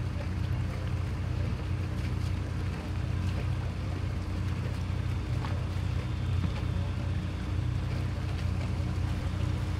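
Steady low engine drone, as of a motor idling, with a faint constant hum above it and no change in pitch or speed.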